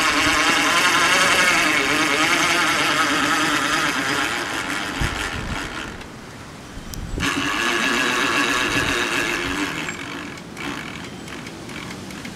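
Small, cheap Harbor Freight electric winch motor, rigged as a go-kart's electric reverse, whining as it drives the kart backwards: it sounds bad and lacks the power for the job. It cuts out for about a second midway, starts again, and fades near the end.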